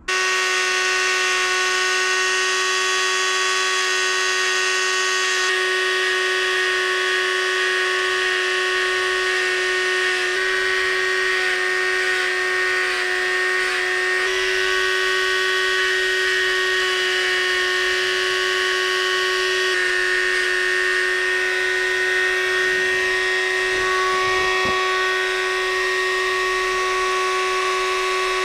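High-speed electric rotary tool running with a bit cutting into wood: a steady, high motor whine at an unchanging pitch, with the rasp of the cut over it.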